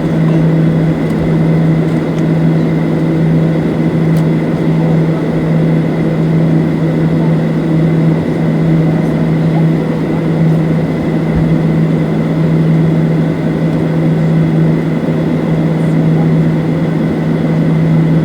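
Steady cabin drone inside a Boeing 737-700 on the ground, a loud unbroken low hum with a faint high whine over it.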